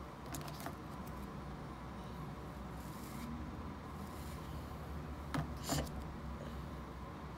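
Light handling noises: a few short clicks, a pair close together near the end, and brief scratchy rustles, over a steady low hum.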